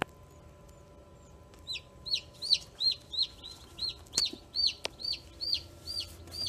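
Chicken chick peeping inside an egg incubator: a rapid, regular run of high, arched peeps, about three a second, starting a couple of seconds in. A single sharp click at the very start.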